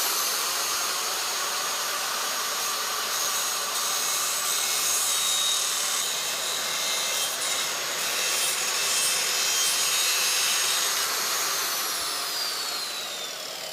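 Electric arc welder laying a bead on steel: a steady crackling hiss that holds for about twelve seconds, then fades near the end with a high tone sliding downward.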